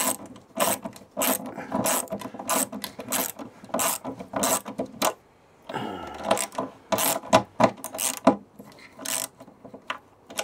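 Socket ratchet wrench clicking in repeated strokes, about one and a half a second with a short pause about halfway through, as it runs a lock nut onto a backup camera's mounting bolt.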